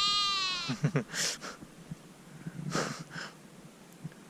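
A sheep bleating loudly once, a long call that is already sounding at the start and ends under a second in. A couple of brief hissy noises follow.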